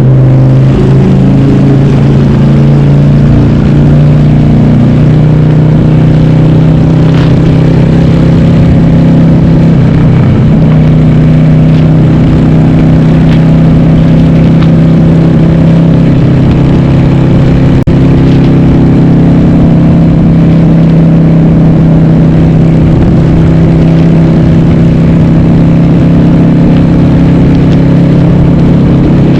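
Harley-Davidson Sportster's 1200 air-cooled V-twin running loud through Cobra Speedster 909 pipes with the baffles (dB killers) removed, heard onboard while riding. The pitch shifts during the first few seconds, then the engine holds a steady cruise.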